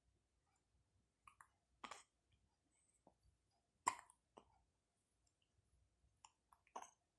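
Newborn baby hiccuping: three short, sharp hiccups about two to three seconds apart, the middle one loudest, with faint clicks between.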